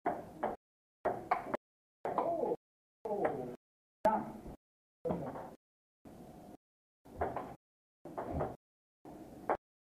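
Table tennis ball clicking off paddles and table during a rally, with room noise. The audio drops out completely about once a second, leaving only half-second pieces of sound.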